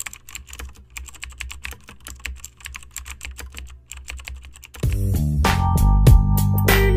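Fast, faint key clicks from a typing sound effect, then loud music with a deep bass starts about five seconds in.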